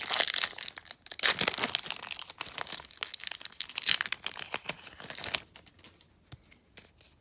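Trading-card pack wrapper being torn open and crinkled by hand: a dense run of crackling and tearing for about five and a half seconds, then only a few faint ticks.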